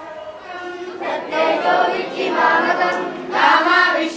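A group of boys singing together in chorus. The singing starts faintly about half a second in and becomes louder after about a second.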